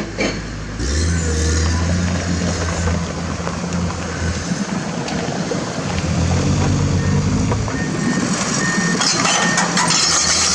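A hydraulic excavator's diesel engine running and revving up under hydraulic load. Its pitch rises about a second in and again around six seconds in, with clattering near the end.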